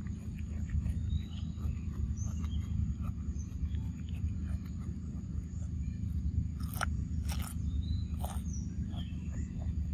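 Macaque biting and chewing raw cucumber, with three crisp crunches close together near the end, over a steady low rumble.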